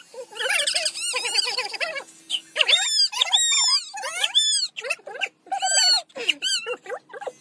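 Toddler crying hard in repeated high-pitched wails while his head is shaved. An electric hair clipper hums faintly and steadily underneath for the first few seconds.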